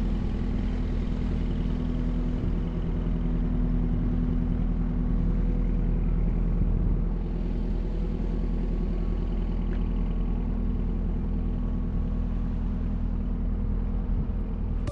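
An engine running steadily, a low even drone with a stack of steady tones above it.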